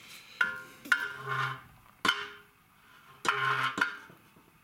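Four sharp knocks, each followed by a brief ringing tone, spread unevenly over a few seconds.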